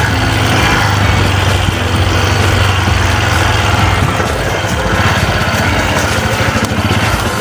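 Small motorcycle engine running steadily at low speed, a constant drone with a little wind and road noise over it.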